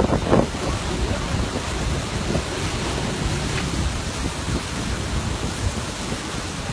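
Lava pouring into the sea at the foot of a cliff: a steady rush of surf, steam and low rumble, with wind buffeting the microphone and a louder burst just after the start.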